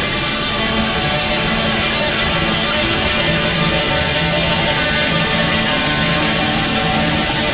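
Pipa plucked and strummed within a dense improvised trio texture of held drone tones from mouth organ and effects-processed double bass; the texture thickens suddenly at the start.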